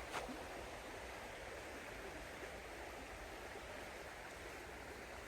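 Steady outdoor background hiss with one faint click just after the start.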